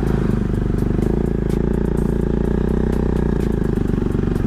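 Motorcycle engine running steadily, its note holding nearly level.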